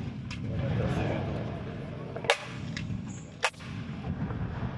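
Aerial firework shells bursting overhead: two loud sharp bangs a little over a second apart and a few fainter pops, over a low continuous rumble.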